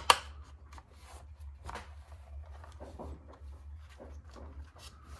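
Hands handling and fitting plastic RC car chassis parts. Two sharp clicks right at the start are followed by scattered light clicks and rustles over a steady low hum.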